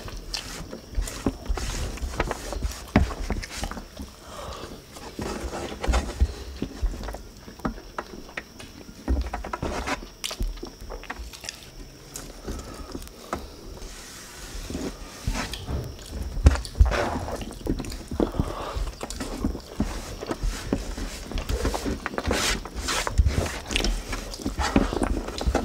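Eating by hand from a metal tray: chewing and mouth sounds, with fingers scraping up rice and chicken and tapping on the tray, heard as irregular small clicks and knocks.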